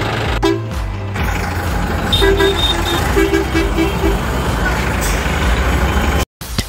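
A vehicle engine running with a steady low rumble, with a string of short horn toots in the middle. The sound cuts off abruptly near the end.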